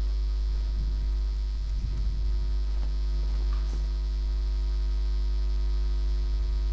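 Steady electrical mains hum: a low tone with a ladder of even overtones that runs unchanged underneath, with one faint click a little past the middle.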